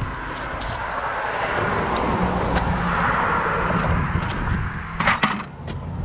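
A car passing by on the road, its tyre and engine noise swelling to a peak midway and fading, with a couple of sharp knocks about five seconds in.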